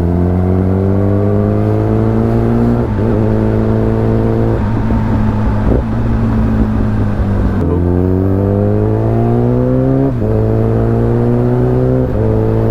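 A 2015 Kawasaki Ninja ZX-10R's inline-four engine pulls under acceleration, heard onboard. The revs rise and drop sharply at each upshift, several times in a row.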